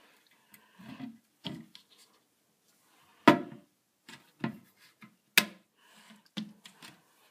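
Plastic hinge caps on a new toilet seat being pushed down with the thumbs and snapped shut over the bolts. There are several short knocks and plastic clicks, with two sharp snaps about three and five seconds in as the caps lock into place.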